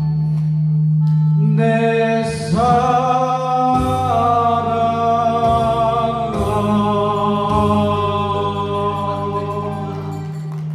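A man singing into a handheld microphone over a backing accompaniment, holding long, wavering notes.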